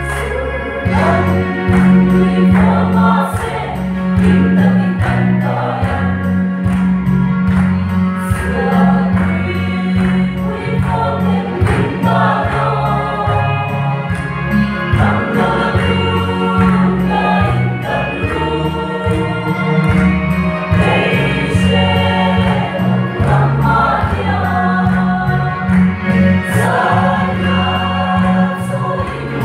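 Mixed church choir of men's and women's voices singing a gospel hymn in parts, in Mizo, with a strong steady bass line underneath.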